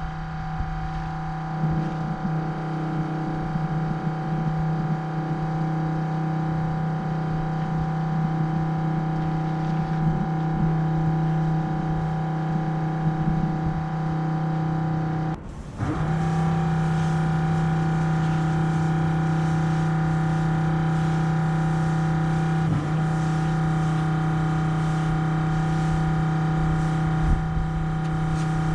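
Pressure washer's engine running steadily at a constant pitch while the wand sprays. The sound cuts out for a split second a little past halfway, then carries on unchanged.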